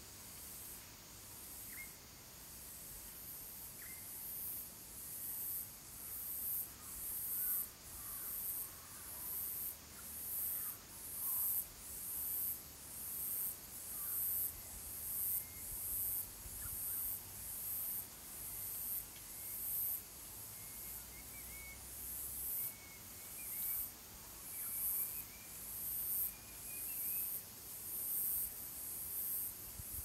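Cicadas calling in a high, hissing chorus that swells and fades about once a second. Faint small-bird chirps come and go over it.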